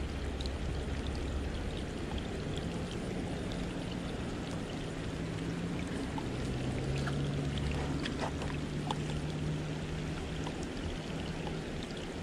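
Rain falling on the river: an even hiss dotted with many small drop ticks. A faint low hum runs under it from a few seconds in until near the end.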